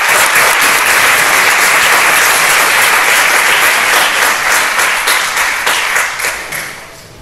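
Audience applauding, a dense round of clapping that dies away near the end.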